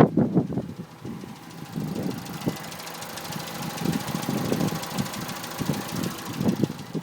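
2006 Citroën C2 VTS's 1.6-litre 16-valve petrol engine running, with repeated tapping that the owner calls horrible and cannot account for. The sound is louder for a moment at the very start.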